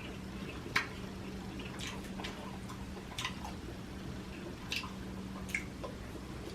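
Close-miked chewing and wet mouth smacks from eating a seafood boil in butter sauce: a scattering of sharp, wet clicks about a second apart, over a faint steady hum.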